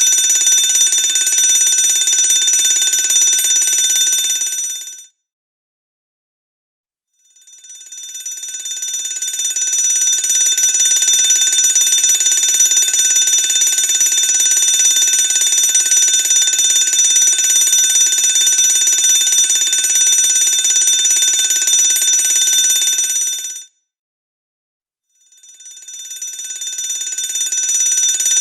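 Electric fire alarm bell ringing continuously. It cuts out about five seconds in, fades back in after a couple of seconds of silence and rings for about sixteen seconds, then stops again and starts once more near the end.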